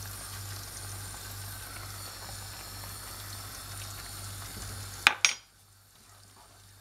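Tomato and olive sauce sizzling and bubbling in a frying pan, freshly loosened with pasta cooking water, as it is stirred. About five seconds in come two sharp knocks, the loudest sounds here, and after them it goes much quieter.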